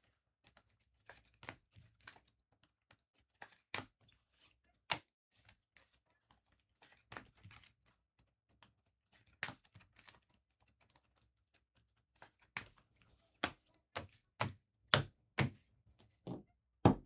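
Trading cards and card holders being handled on a table: irregular sharp taps and clicks, with a few louder knocks near the end.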